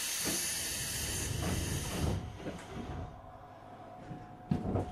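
Sudden hiss of compressed air from a JR 205 series electric train's pneumatic doors, fading after about two seconds. A faint steady tone follows, with a knock near the end.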